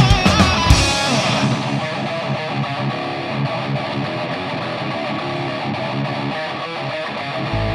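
Rock band's instrumental passage played live: the drums and bass drop out about a second in, leaving electric guitar playing on its own, and a low bass note comes back in near the end.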